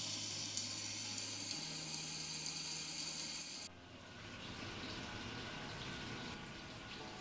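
Milkfish frying in hot oil in a wok: a steady crackling sizzle that cuts off suddenly a little past halfway, leaving soft background music.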